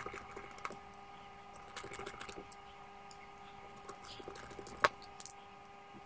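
Light, scattered clicks and taps of a small screwdriver and tiny screws as they are fitted into a phone's plastic midframe, with a sharper click about five seconds in. A faint steady hum runs underneath.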